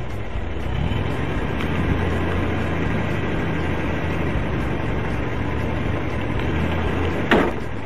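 Vehicle engine idling with a steady low hum. A sudden loud bang comes near the end.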